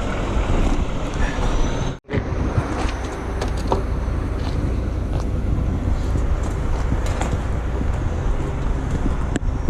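Heavy recovery trucks' diesel engines running steadily, with a low rumble and a few faint knocks. The sound cuts out for an instant about two seconds in.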